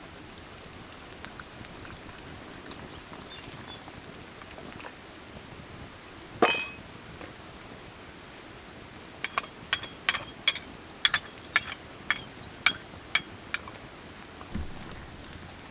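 Metal or glass cookware clinking: one sharp ringing clink, then a quick run of about a dozen light clinks, roughly three a second, and a dull thump near the end, over a steady hiss of rain.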